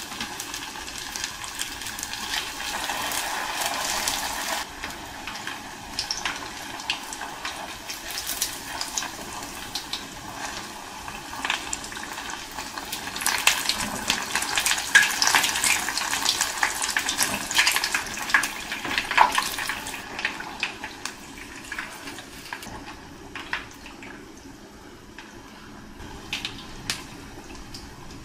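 Hot oil sizzling and crackling around sambousek wrapped in spring-roll pastry frying in a frying pan. It grows louder and busier about halfway through, then settles toward the end.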